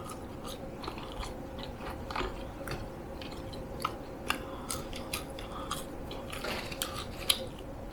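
A person chewing and biting McDonald's food close to the microphone, with many small scattered mouth clicks, over a faint steady hum.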